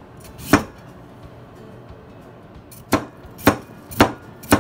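Chinese cleaver chopping a white radish into roll-cut chunks on a cutting board: one chop about half a second in, then four chops about half a second apart near the end.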